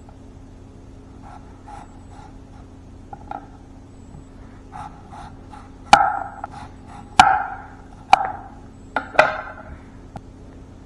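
A series of sharp knocks of hard objects being set down on a wooden board, each with a short ringing decay. They are faint at first, then five louder knocks come roughly a second apart in the second half, over a faint steady hum.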